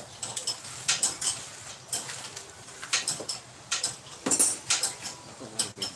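Irregular metallic clinks and clicks of hand tools and bolts against a Toyota Vios engine being taken apart, about ten in all, the loudest a little past the middle.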